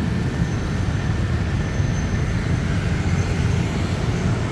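Steady rumble of city road traffic, with no single vehicle standing out.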